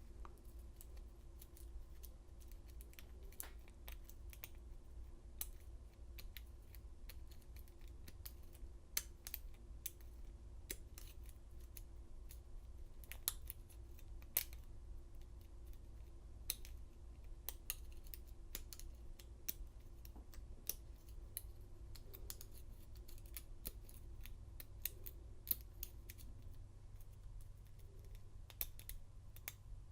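Faint, irregular metallic clicks and ticks of a hook pick and tension wrench working the pins inside a Schlage lock cylinder during single-pin picking, over a low steady hum.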